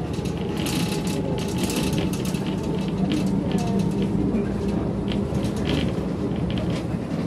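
Bus running along a road, heard from inside the cabin: a steady low engine and road drone with frequent short rattles and clicks from the body.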